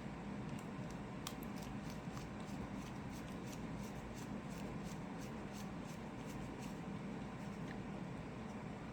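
Faint, scattered light clicks of tweezers and small lock pins being handled over a steady background hum.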